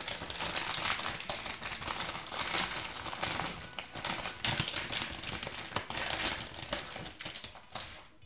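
A foil blind-bag toy packet crinkling and crackling as it is handled and torn open by hand, fading out near the end.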